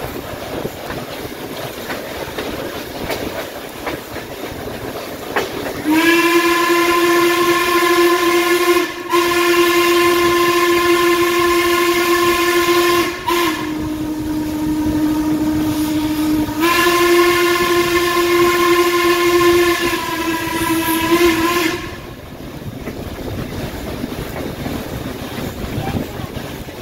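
Steam whistle of Baldwin 2-6-6-2 articulated locomotive 1309 blowing for a grade crossing: long blasts lasting about sixteen seconds in all, with two brief breaks and a drop in pitch in the middle. Around it, the steady rumble and clickety-clack of the train's wheels, heard from an open car right behind the engine.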